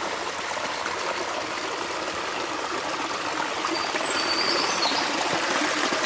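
Small stream running steadily, water trickling and splashing over rocks, growing a little louder near the end.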